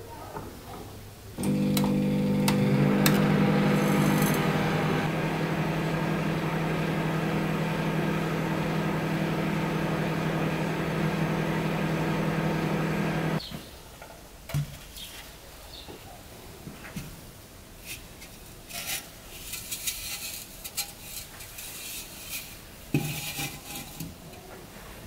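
Microwave oven running at full power to fire a microwave kiln: a steady electric hum that starts about a second in and stops abruptly about halfway through. After it come scattered light clicks and clinks as the small terracotta decorations and the kiln are handled.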